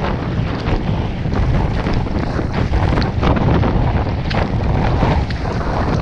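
Strong wind blasting across the microphone as a loud, steady low rumble, with irregular splashes of choppy water around a kayak.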